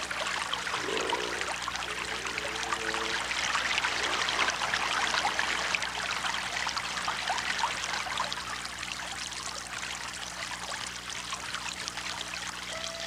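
River water flowing and splashing in a steady rush, a little louder about four seconds in.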